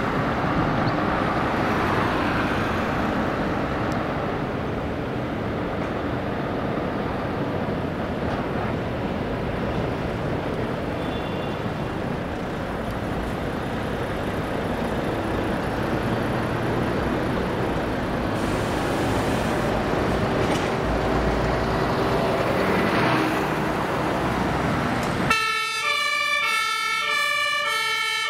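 Steady diesel engine and road noise from a Mercedes-Benz Actros fire-brigade roll-off truck pulling out. About 25 seconds in, its two-tone siren switches on and alternates evenly between two pitches.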